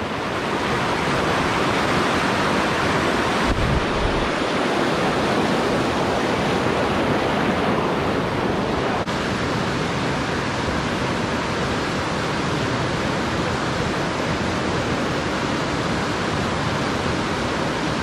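Rushing stream water tumbling over boulders in a small cascade, a loud steady rush. About nine seconds in it gives way abruptly to a slightly quieter, even hiss.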